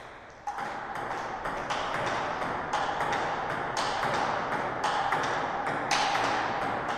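Table tennis rally: the celluloid-type ball cracking off the bats and clicking on the table about three times a second, with a few harder strokes standing out. A steady tone runs underneath.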